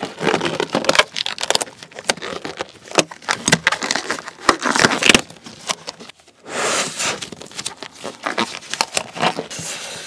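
Thin disposable gloves being worked onto damp hands close to the microphone: a run of crinkling, rubbing and sharp clicking noises as the gloves stick to the wet skin and are tugged down over the fingers.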